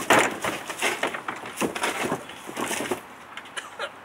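Hard plastic knocks and clatter of a wheeled trash bin being handled. The loudest knock comes right at the start as the lid is swung open, followed by scattered smaller knocks and rattles that die down about three seconds in.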